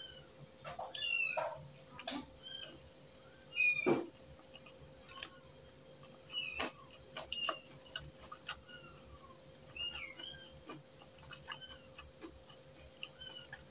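Crickets chirring steadily under close-up eating sounds: scattered wet clicks of chewing and lip-smacking, the loudest about four seconds in, with frequent short high chirps.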